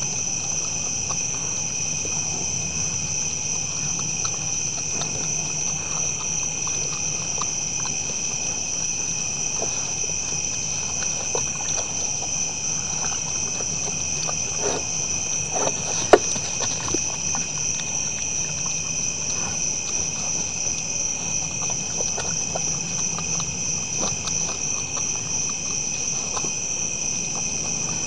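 Steady high-pitched chorus of night insects in two pitches, with scattered small crunches and clicks from whitetail deer eating feed out of plastic bowls. A single sharp knock about sixteen seconds in.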